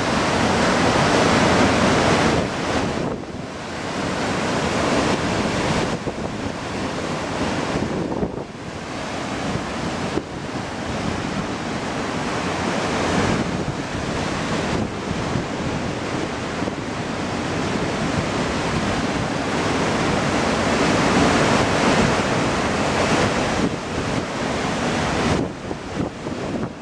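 Waterfall pouring down a rock face into a churning pool: a steady rush of falling water, dipping briefly in level now and then.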